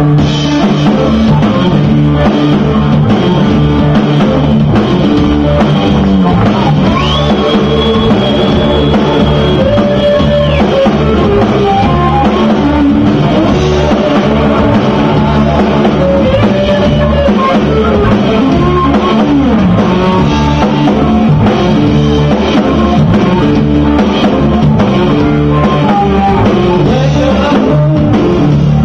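Live band playing loud rock instrumental: electric guitar over a drum kit.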